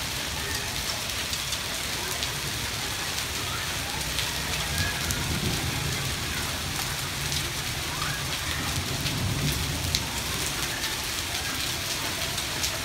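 Hailstorm: heavy rain mixed with hail pelting a paved street and a concrete parapet, a steady hiss with frequent sharp ticks of stones striking.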